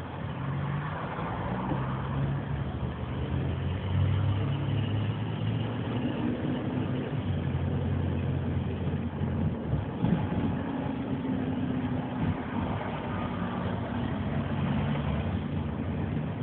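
Taxi driving through city streets, heard from inside the cab: steady engine hum and road noise, the engine's pitch stepping up and down several times as the car changes speed.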